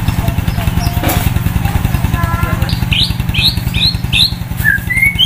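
White-rumped shama (murai batu) singing a run of short, hooked whistled notes, about three a second, starting about three seconds in and climbing into a rising phrase near the end. Under it, a motorcycle engine runs with a steady low pulsing throughout.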